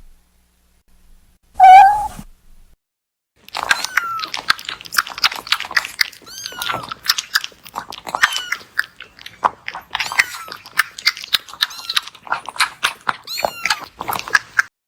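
A kitten meows once, short and loud, about two seconds in. From about three and a half seconds comes a rapid, irregular run of clicking, smacking sounds like chewing, dotted with short high mews.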